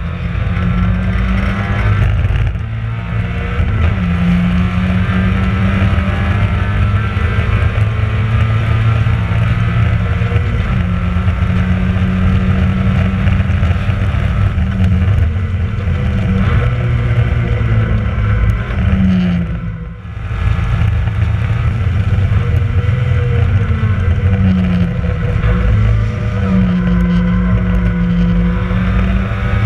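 Mazda MX-5 race car's four-cylinder engine at racing speed, heard from an onboard camera; its pitch drops and climbs back again and again as the driver brakes, changes gear and accelerates through corners, with a brief lift about twenty seconds in.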